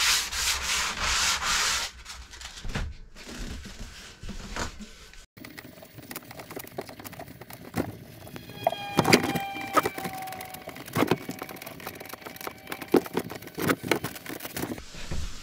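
Hand sanding of a wooden boat's mahogany cabinside with a sanding sponge: a steady rasping rub, loudest in the first two seconds. Then quieter handling, with light clicks and short clinks of a small can while oil is wiped onto the wood.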